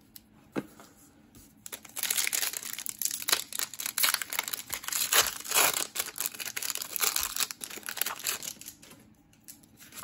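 Foil wrapper of a Pokémon trading-card booster pack crinkling and tearing as it is ripped open by hand. It starts about two seconds in as a dense run of crackles and dies away about a second before the end.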